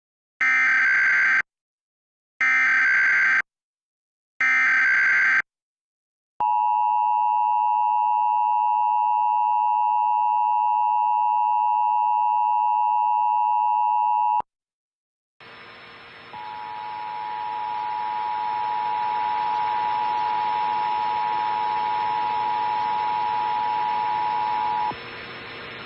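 Emergency Alert System test tones: three short buzzy bursts of SAME header data, about a second each, then the two-tone attention signal held steady for about eight seconds. After a brief gap comes a steady hiss with a faint steady tone in it.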